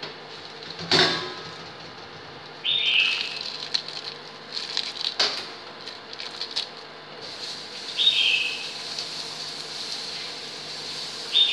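Hands crumpling fresh lá giang leaves and dropping them into a glass pot of simmering chicken broth, with small crackles and a light hiss. There are two sharp knocks, about a second in and about five seconds in, and three short high chirps, near the start, in the middle and at the very end.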